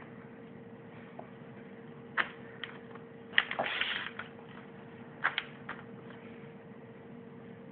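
A sheet of paper rustles briefly as a hand slides and shifts it on a paper bag. A few sharp taps come before and after, over a faint steady hum.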